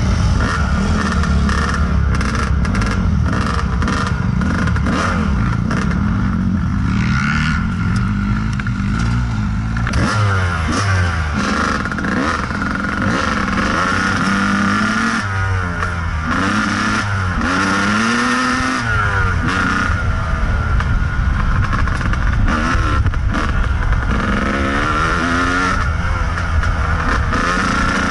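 Kawasaki KDX220 two-stroke single-cylinder dirt bike engine revving up and down as it is ridden along the trail, the pitch rising and falling many times, with rattle and clatter from the bike over the ground.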